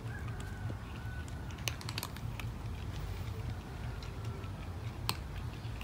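A cat crunching dry kibble: irregular sharp crunches and clicks over a steady low background rumble.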